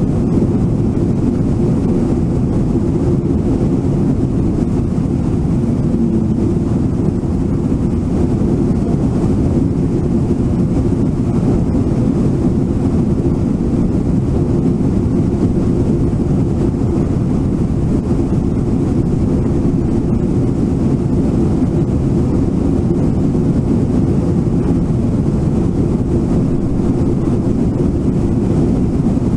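Whitewater of Brooks Falls and the rapids below rushing steadily: a loud, even, deep rush of falling water with no breaks.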